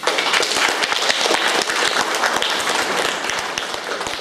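Audience applauding, starting suddenly with many hands clapping at once.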